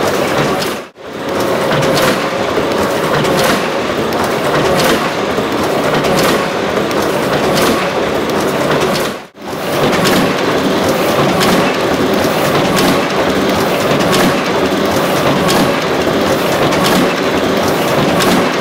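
Heidelberg Original cylinder die-cutting press running: a continuous mechanical clatter with a sharp clack that repeats at a regular rhythm with each machine cycle. The sound drops out abruptly twice, about a second in and again near the middle.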